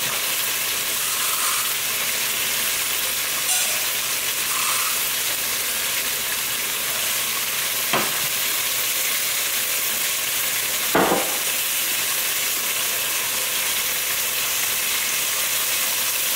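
Steady sizzle of food frying in oil in a pan on the stove, with two short knocks of kitchenware about eight and eleven seconds in.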